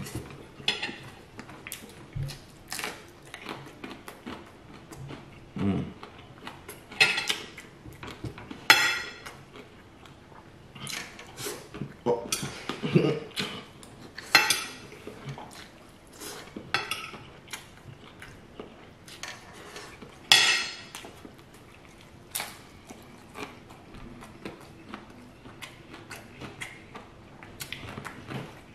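Metal fork clinking and scraping against a plate in irregular, scattered strikes as scrambled eggs are scooped up and eaten.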